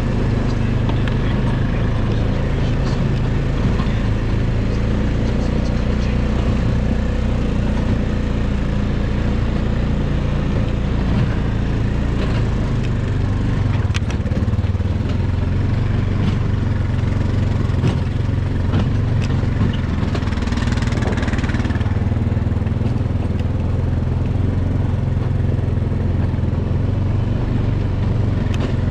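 A small vehicle engine running steadily; its note shifts about halfway through.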